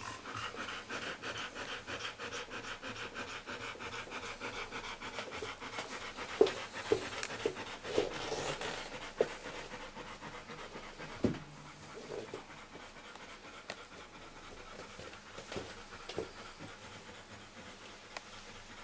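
A dog panting rapidly and evenly, growing fainter in the second half. A few short knocks or taps come around the middle, the loudest a little past halfway.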